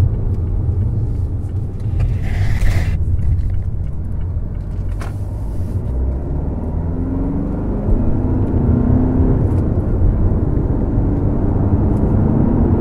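Mazda6 SKYACTIV-D 2.2-litre four-cylinder turbodiesel heard from inside the cabin, with a steady low rumble. Over the second half the car accelerates through a manual gearbox, and the engine note climbs in several steps. There is a brief hissing noise about two seconds in.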